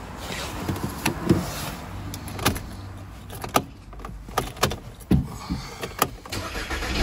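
A string of clicks and knocks around a 2011 Skoda Octavia, then right at the end its engine starts and settles into a steady low running hum, the first start after a cut relay feed wire was repaired.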